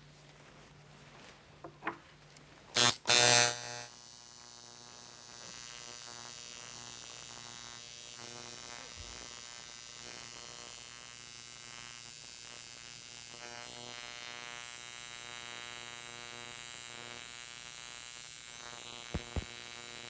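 A loud knock about three seconds in, then a tattoo machine buzzing steadily as it tattoos the skin of a forearm.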